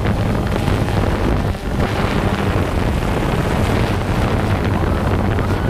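Small camera drone hovering low: a steady rushing of propeller wash and wind on its microphone, over a constant low hum of the motors.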